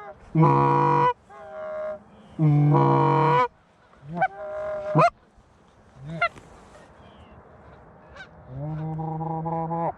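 Hand-blown Canada goose calls sounding loud and close: two long runs of honking, then a few single sharp honks that break upward, and a long drawn-out low moan near the end, used to draw incoming geese to the decoys.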